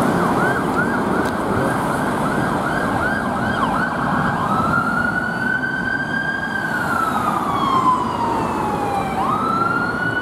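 Siren of a Bristol Ambulance Renault Master ambulance. It first sounds a fast yelp, rising and falling about two and a half times a second. About four seconds in it switches to a slow wail that climbs, holds, sinks and climbs again, over road traffic noise.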